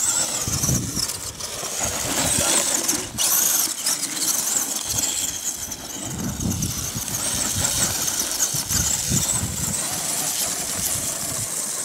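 Radio-controlled off-road car's motor whining at a high pitch that rises and falls with the throttle as it is driven over sand.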